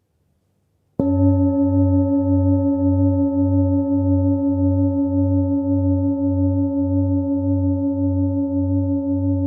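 Himalayan singing bowl struck once about a second in, then ringing on with several steady overtones and a low hum that pulses about twice a second.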